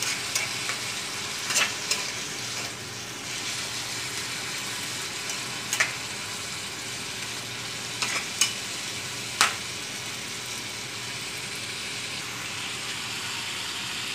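Sliced bamboo shoots sizzling steadily in a frying pan with oil, vinegar and soy sauce as a metal spatula stirs them. The spatula clicks and scrapes against the pan about seven times in the first ten seconds.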